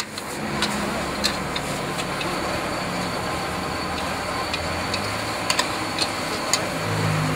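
Metal spatula clinking and scraping against a steel wok at irregular intervals as noodles are stir-fried over a gas burner, with the burner's steady hiss underneath. A car engine hum comes up near the end.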